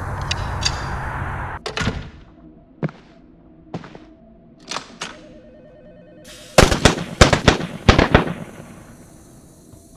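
A rapid volley of gunshots, about eight sharp cracks in under two seconds, each with a short ringing tail. Before it, a steady low rumble cuts off after about a second and a half, and a few separate knocks follow.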